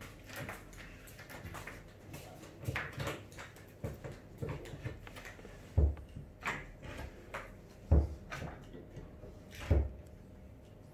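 Wooden knocks and clatter as plywood subwoofer-box panels and hand tools are handled during assembly, with three heavy, deep thumps about two seconds apart in the second half.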